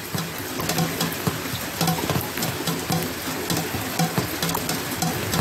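Rain falling steadily, with many sharp clicks of drops striking hard surfaces and a regular drip tapping about twice a second, around an aluminium pot set out to catch rainwater.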